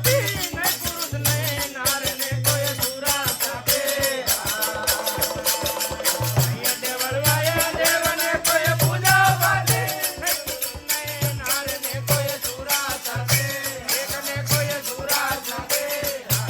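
Rajasthani desi bhajan music: fast, steady percussion under a wavering melody, with low notes pulsing in a regular rhythm.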